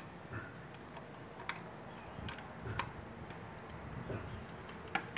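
A handful of light plastic clicks and taps, spread irregularly: a USB plug pushed into a TV box's port and the plastic box handled. The sharpest clicks come right at the start and near the end.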